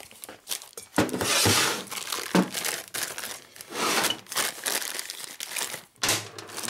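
Plastic bag crinkling and rustling as it is handled and pulled off a new motorcycle engine piston, with a couple of sharp knocks about one and two and a half seconds in.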